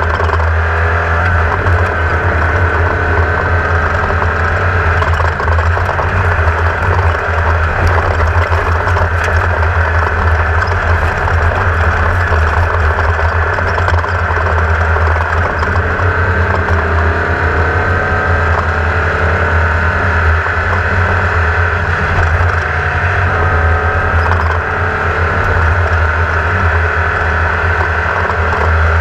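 Air-cooled Volkswagen 1600 engine of a Class 1600 off-road race car running hard at race pace, its pitch drifting up and down with the throttle. A steady deep rumble runs under it.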